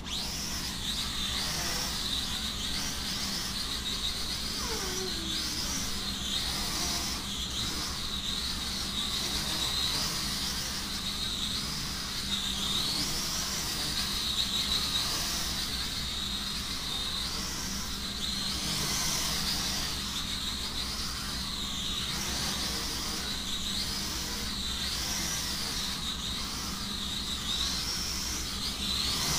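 Small toy quadcopter's propellers buzzing in flight: a high whine that rises and falls about once a second as it is steered, over a low steady hum.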